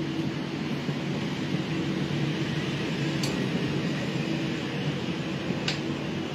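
Steady mechanical hum and hiss with a low drone inside a passenger railway coach, with two short sharp clicks about two and a half seconds apart.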